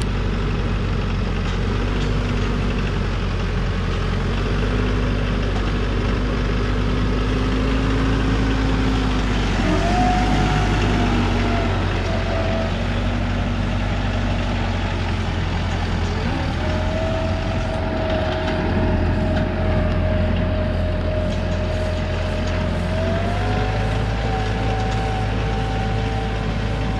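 Diesel engine of a TYM compact tractor running steadily, with a thin whine over it that steps up in pitch a few times.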